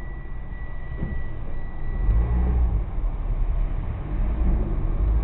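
A car's engine and road noise heard through an in-car dashcam: a low rumble that grows louder about two seconds in as the car pulls away. A steady high-pitched tone fades out partway through.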